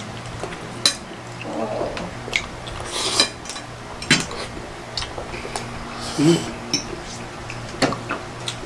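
Metal forks clinking and scraping on glass plates in scattered single clicks, with a short slurp of spaghetti noodles about three seconds in.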